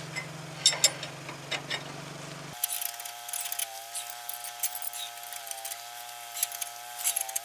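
Ratchet wrench clicking in short irregular runs as it turns the screw of a ball joint C-press, starting to press a new ball joint into the steering knuckle. A steady low hum under the first couple of seconds stops abruptly, leaving a faint wavering tone.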